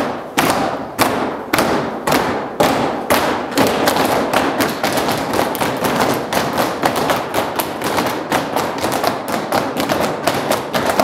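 Many children beating on a wooden floor together: a regular run of thuds that speeds up from about two a second to three or four, like a train setting off.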